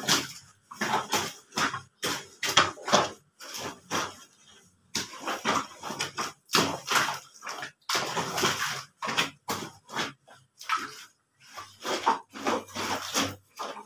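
A wet, soapy fleece blanket being scrubbed and rubbed by hand on a concrete floor while laundry is washed by hand: irregular wet scrubbing and squishing strokes, a few a second, with a short lull near the middle.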